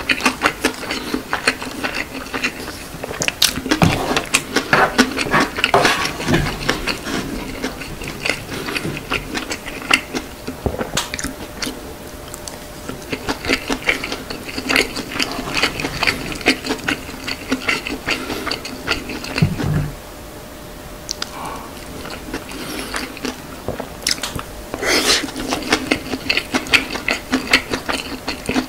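Close-miked chewing and biting of rice mixed with fried chicken: many small, quick mouth clicks and crackles, easing off briefly about two-thirds of the way through before picking up again.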